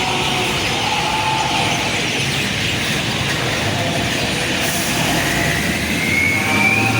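Steady city traffic noise, with a thin high tone that rises slowly from about five seconds in.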